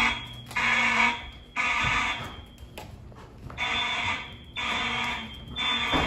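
Fire alarm horns sounding the temporal-3 evacuation pattern: three buzzing half-second blasts about a second apart, a pause of about a second and a half, then the next three.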